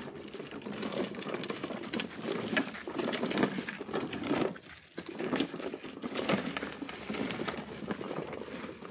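Hard plastic wheels of a child's toy ride-on motorbike rolling and crunching over sandy, gravelly dirt, with feet scuffing the ground as it is pushed along; the crunching pauses briefly about halfway through.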